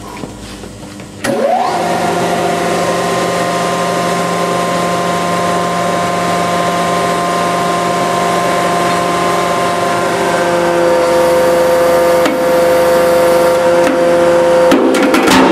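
A 500-ton hydraulic press's pump starts suddenly about a second in and runs with a loud, steady whine as the ram presses down on a stack of books; its tone shifts slightly as the load builds. Near the end, sharp cracks and crunches come in as the books' pages give way.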